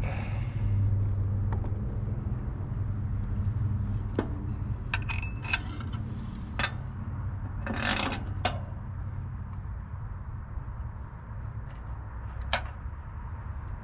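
Scattered metallic clicks and clinks, with a short rattle about eight seconds in, from nuts, washers, bolts and hand tools as a horn is bolted onto its mount, over a steady low hum.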